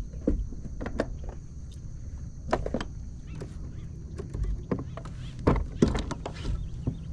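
Scattered knocks and clicks of fishing gear and a landing net being handled in a kayak, over a steady low rumble. The sharpest knocks come about two and a half seconds in and again near six seconds.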